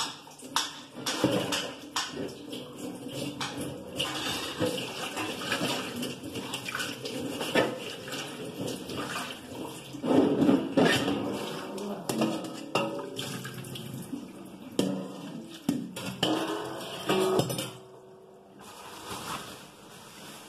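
Water running and splashing at a kitchen sink, with scattered knocks and clatter, stopping abruptly about eighteen seconds in.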